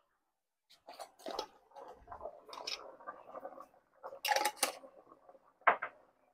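Seasoning shaken from glass spice jars into a pot of cream sauce: a run of crisp, irregular rattling shakes, loudest about four seconds in, then a single sharp knock near the end.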